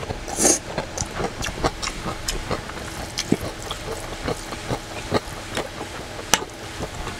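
Eating sounds: a short slurp of ramen noodles about half a second in, then wet chewing and lip-smacking with many small clicks, and one sharper click about six seconds in.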